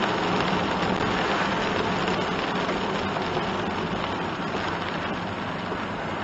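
Steady hiss of rain and tyres on a wet road, heard from inside a small kei van's cabin, easing off slightly toward the end.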